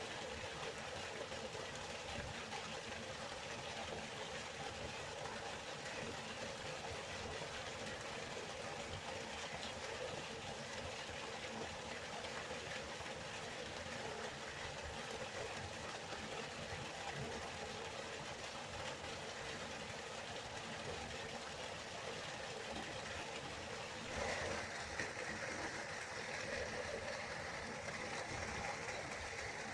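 River water flowing, a steady rushing sound; about three-quarters of the way through it briefly grows louder and takes on a brighter, hissier tone.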